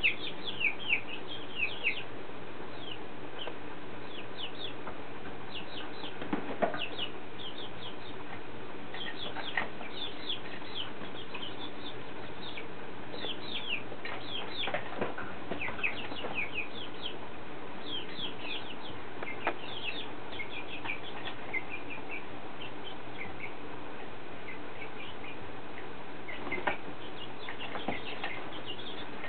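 Young, half-grown chickens peeping: many short, high cheeps that fall in pitch, scattered irregularly throughout.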